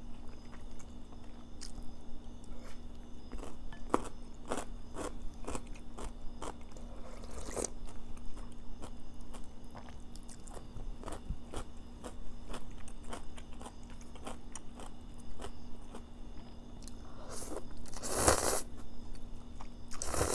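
Close-up eating sounds: crunchy bites and wet chewing, as a series of short clicks. Then, near the end, a loud slurp of Jin Ramen instant noodles.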